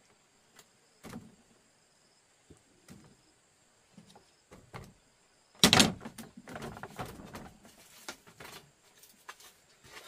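Scattered small clicks, then one sharp knock a little over halfway through, followed by a few seconds of rustling and scraping.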